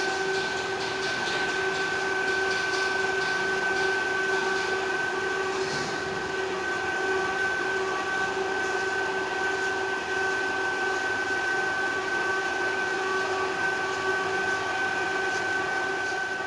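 Plastic film extrusion/rubbing dryer, a screw squeezer that presses moisture out of washed plastic film, running steadily: a constant whine over a rough mechanical noise, with faint irregular crackle in the first few seconds.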